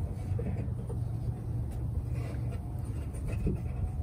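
Faint metallic clicks and scrapes of an adjustable wrench and fingers turning out the ball-stud bolt of a hood gas strut, over a steady low rumble.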